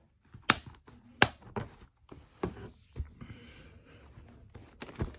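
Plastic DVD and VHS cases being handled and set down on bedding: a string of sharp plastic clicks and taps, with faint rustling of the sheets between them.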